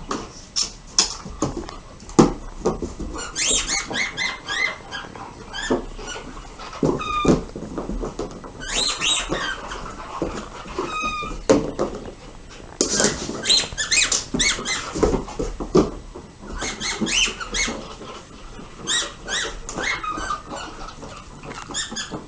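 Squeaky dog toy squeaked over and over by dogs chewing it, in quick bunches of short high squeaks with brief pauses between them.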